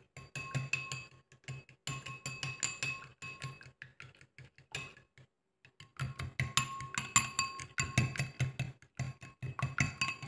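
A metal fork beating egg in a small glass bowl: fast, repeated clinks against the glass, each with a short ring from the bowl. It stops for about a second midway, then resumes.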